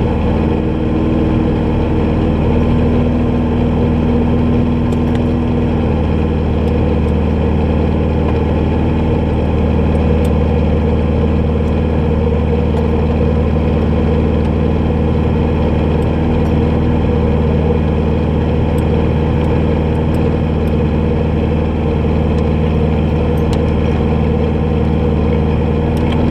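Off-road rally buggy's engine idling steadily, heard from inside the open cockpit.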